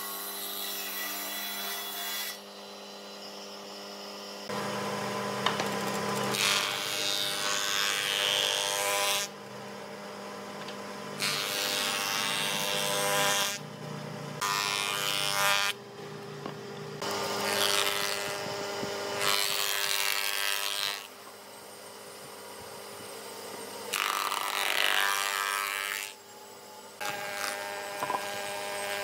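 Stationary woodworking machines, a table saw and a jointer/planer, cutting boards in a series of passes. Each pass is a loud rush of cutting noise lasting a few seconds over the steady hum of the running machine.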